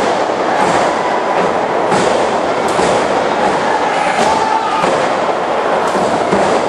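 Steady, loud crowd noise from the spectators at a wrestling battle royal, broken by irregular sharp thuds of wrestlers hitting the ring.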